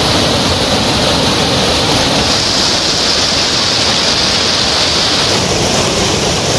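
Floodwater rushing over a low causeway in a loud, steady rush of white water. The hiss shifts higher about five seconds in.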